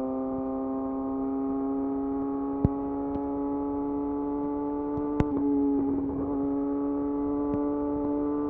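Yamaha YZF R6 inline-four engine, breathing through a de-catted Akrapovic slip-on exhaust, running under steady throttle on the move. Its pitch climbs slowly, breaks briefly about six seconds in, drops a little, then climbs again. A couple of sharp ticks come through.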